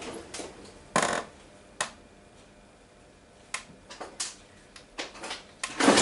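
Scattered clicks and clatters of metal hand tools being handled and sorted through to pick out a larger Torx driver: single knocks about a second in and near two seconds, a few more around four seconds, and a louder clatter near the end.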